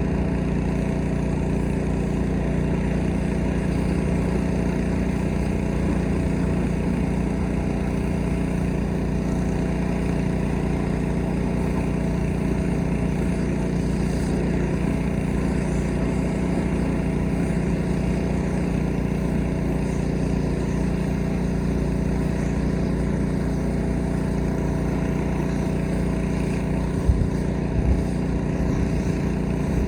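Small gasoline engine of a pressure washer running steadily at constant speed. A couple of brief knocks come near the end.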